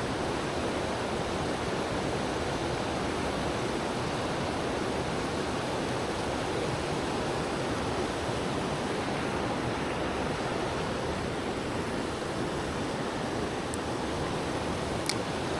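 A mountain stream's flowing water, a steady rush with no change in level, with two faint high ticks near the end.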